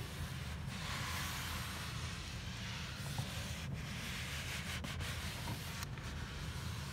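Microfiber dusting mitt rubbed back and forth across a dusty shelf: a steady, soft scrubbing hiss with a few brief breaks.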